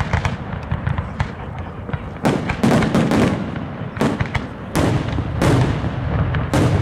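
Aerial fireworks shells bursting overhead, with several loud bangs a second or two apart and rumble and crackle between them.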